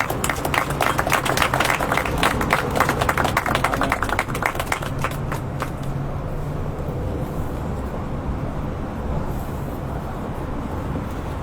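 Small audience applauding for about five seconds after a poetry reading, dying away into a steady low background rumble.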